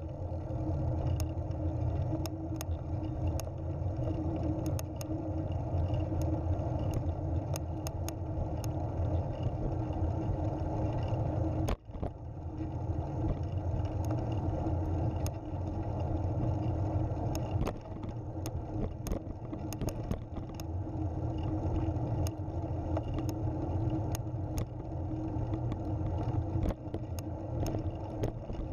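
Recumbent trike rolling over a cracked asphalt trail: a steady rumble of tyres and wind buffeting the onboard camera microphone, with scattered light clicks and a brief dropout about twelve seconds in.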